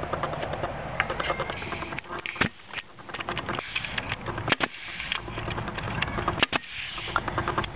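Pneumatic air nailer firing into pallet wood, three sharp shots about two seconds apart, fastening a small wooden block to the frame.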